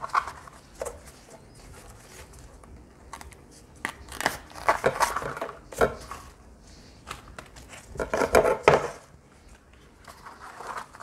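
Outer bracts being peeled off a banana blossom by hand: irregular rustling, snapping and light tapping on a plastic cutting board, busiest about four to six seconds in and again around eight seconds in.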